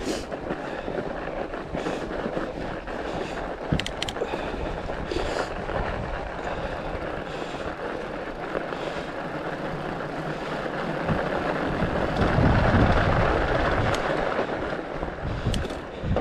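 Riding noise of a fat bike on a packed-snow trail: a steady rush of tyre noise and air on the camera, with a few sharp clicks about four seconds in. The rush grows louder and deeper about twelve seconds in.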